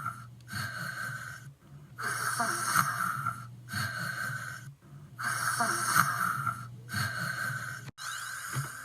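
Anime-style snoring sound effect: a string of cartoon snores repeating about every second and a half.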